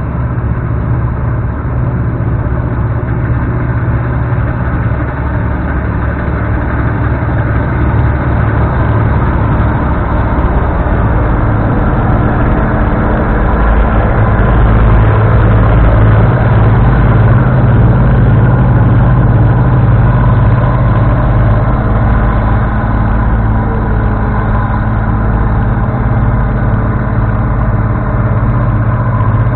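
Bizon Super Z056 combine harvester running while cutting rye: a steady drone from its six-cylinder diesel engine and threshing works, growing louder as it passes close about halfway through and easing off a little as it moves away.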